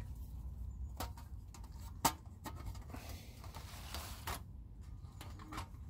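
Hinged metal panels of a Lixada folding wood stove clicking and scraping against each other as they are fitted together by hand. A few light clicks, the loudest about two seconds in, and a stretch of metal sliding on metal later on.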